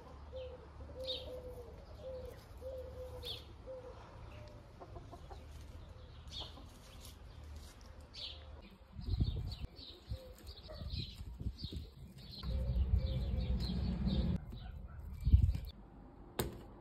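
Birds calling around the tree: a string of low, evenly repeated calls in the first few seconds and short high chirps throughout. Bursts of low rumble hit the microphone about halfway through and again near the end.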